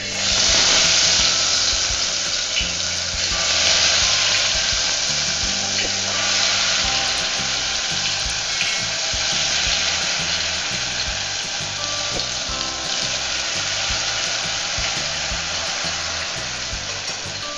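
Thin stream of ghevar batter hitting deep hot oil in a steel pot: a loud frying sizzle that starts suddenly as the batter goes in and eases slowly as it cooks into a lacy mass.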